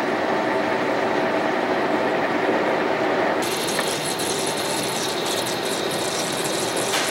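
Large shaft lathe cutting a thread on a steel shaft: a steady machining hum, then from about three and a half seconds in a sudden brighter hiss with crackle.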